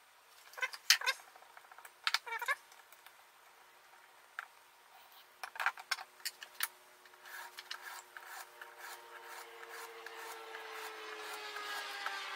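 Knife being sharpened on an Edge Pro Apex jig: a few sharp clicks and knocks, some with a short metallic ring, as the stone arm and blade are handled, then a sharpening stone rasping along the knife edge in strokes, growing louder toward the end.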